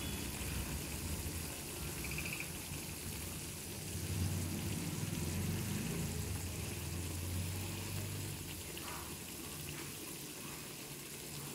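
Thick moong dal fritter and drumstick curry simmering and bubbling in a nonstick pan, with a wooden spatula moving through it; the curry is thickening as the fritters soak up the last of the water, near the end of cooking.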